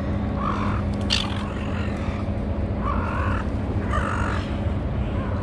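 Silver gulls calling: about three short, harsh calls a second or so apart, over a steady low rumble.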